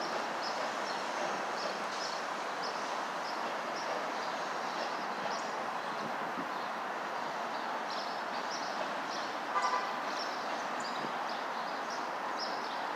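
Steady rolling rumble of a slow Union Pacific manifest freight train, with short high chirps throughout and a brief squeak about halfway through.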